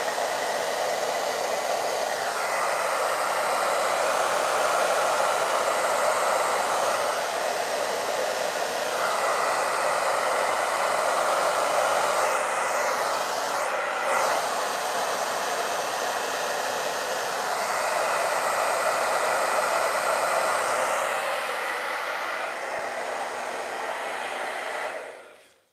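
Handheld hair dryer with a concentrator nozzle running, a steady airy rush that swells and eases a little as it is moved. It is switched off shortly before the end.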